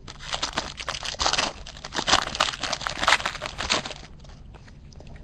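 Foil wrapper of a baseball card pack crinkling and tearing as it is pulled open by hand, a dense crackle that eases off about four seconds in.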